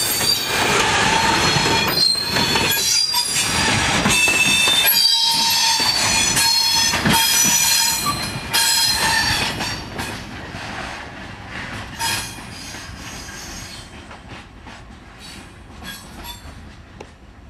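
Loaded quarry hopper wagons of a freight train rolling past close by, their wheels squealing on several high tones over a clatter from the track. After about eight seconds the sound drops away and fades to fainter wheel clicking.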